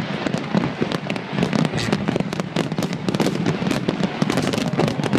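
A large fireworks display in full swing: a dense, unbroken run of bangs and crackling from many shells bursting at once.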